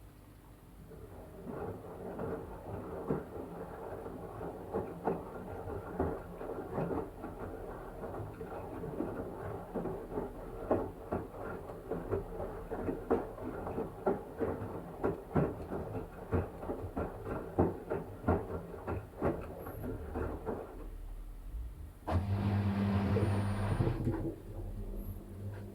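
Washing machine tumbling a wet blanket in its drum: continual irregular sloshing and soft knocks. After a short lull near the end, a louder steady motor hum starts.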